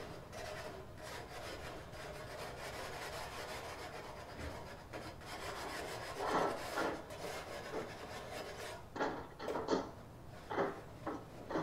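Scrubbing a barbecue grill with cleaner to wipe grime off: steady rubbing and scraping strokes, with a few harder, separate strokes in the second half.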